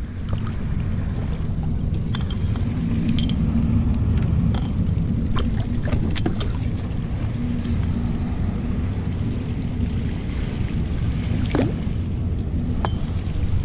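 Steady low wind rumble buffeting the action camera's microphone, with water sloshing and a few small splashes and knocks as a hooked fish thrashes at the kayak's side.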